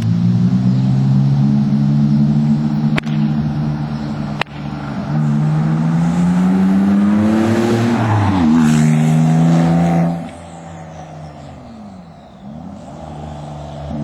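Porsche 997 Turbo's twin-turbo flat-six running through Fabspeed muffler bypass straight pipes and sport cats on a hard pull. The engine note climbs in pitch, with a gear change about eight and a half seconds in. At about ten seconds the driver lifts off and it drops much quieter.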